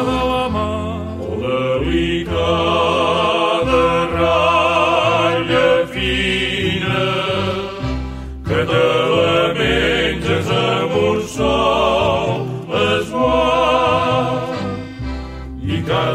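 Havanera song: a vocal group singing a verse with vibrato over a steady instrumental accompaniment with a repeating bass line.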